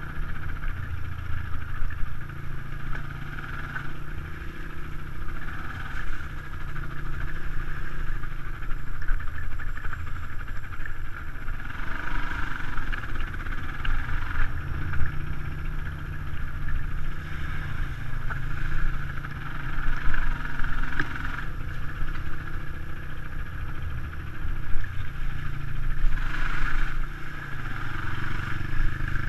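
Dirt bike engine running while riding a rough dirt track. The engine note rises and falls with the throttle, with louder swells several times along the way.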